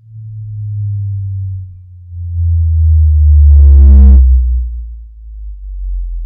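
Subwoofer playing a slow downward sine sweep through the bass, falling from around 100 Hz toward 50 Hz and swelling loudest midway: a test tone for measuring the room's bass response. At the loudest point a short buzz with higher overtones rides on top of it for under a second.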